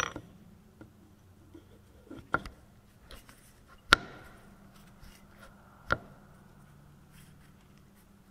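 Sharp metal clinks as a steel hydraulic-pump input shaft is handled and seated in its cast housing, four main clicks with the loudest about four seconds in, the louder ones followed by a short metallic ring.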